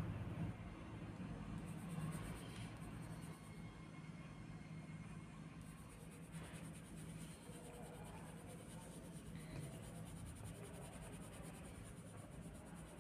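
Coloured pencil scratching softly on paper as it shades in a drawing, with short back-and-forth strokes. A faint steady low hum runs underneath.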